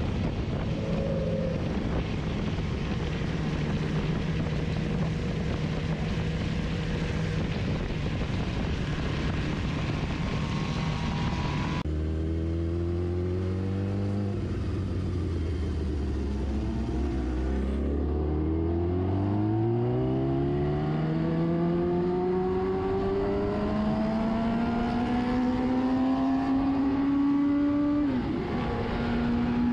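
Sport motorcycle engine heard onboard, with wind rushing over the microphone. At first it holds a steady tone while cruising. After a cut it drops in pitch, then climbs steadily as the bike accelerates, with a brief dip at a gear change near the end.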